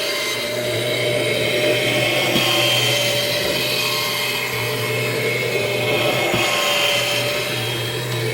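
Kirby G6 upright vacuum's motor running steadily with an even whine.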